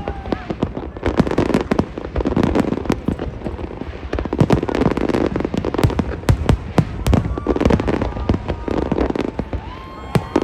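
A fireworks display going off: dense bangs and crackles, several a second, over a continuous low rumble of explosions.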